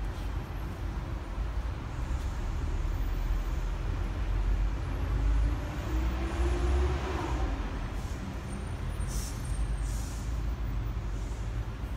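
Street traffic: a steady low rumble of passing vehicles that grows louder around the middle, with one engine briefly rising in pitch.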